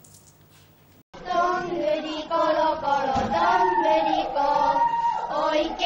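A group of voices singing a song, cutting in abruptly about a second in after a moment of quiet.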